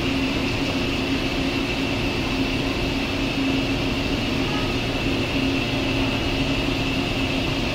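Shinano Railway 115 series electric train standing at the platform, its onboard equipment giving a steady low hum with a thin high whine above it.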